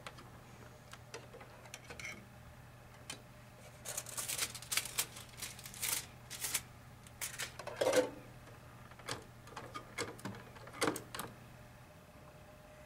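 Irregular clicks, taps and small knocks from a portable CD player being handled as its disc is changed, over a faint low hum that stops near the end.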